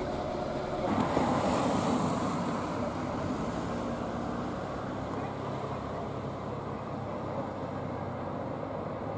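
Road traffic: trucks driving along a street, a steady mix of engine and tyre noise that is loudest a second or two in and then settles.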